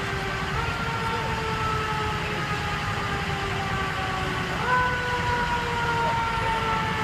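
Emergency vehicle siren: a held tone that sinks slowly in pitch and jumps sharply back up twice, about half a second in and again near five seconds. A steady low engine and traffic rumble runs under it.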